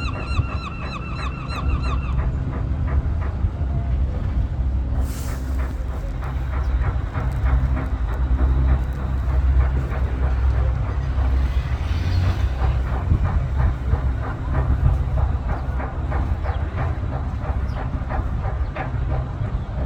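A boat's engine running steadily with a low rumble and fast, fine ticking. A repeated honking call sounds over it for the first two seconds.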